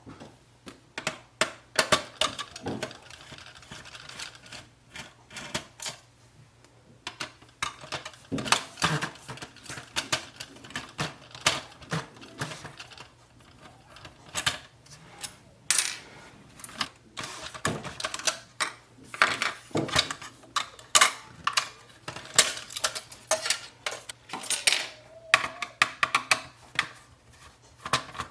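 Printer parts being handled during disassembly: a run of irregular clicks, clacks and knocks of hard plastic and metal pieces.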